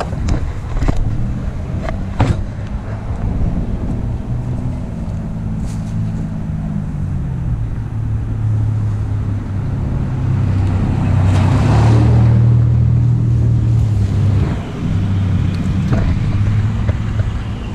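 Vehicle engine running at low speed, its pitch dropping about seven seconds in. Another vehicle swells up and passes around twelve seconds in. A couple of sharp knocks come in the first two seconds.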